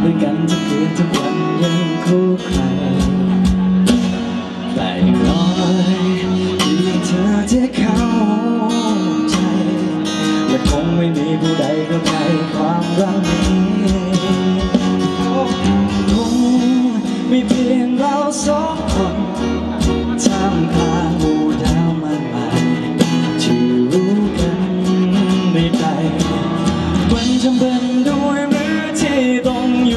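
A male singer sings a Thai pop song live into a microphone, over band accompaniment with guitar.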